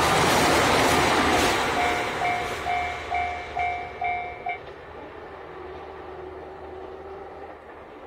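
The tail end of a JR Hokkaido KiHa 261 series diesel express train passes over a level crossing, its rolling noise loud at first and fading over the next few seconds. The crossing's warning bell rings in rapid dings, about two to three a second, and cuts off about four and a half seconds in as the crossing clears.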